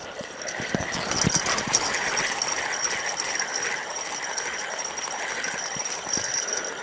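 Fishing reel being cranked to wind in line after a bite, its gears whirring in a steady rhythm of roughly one and a half handle turns a second.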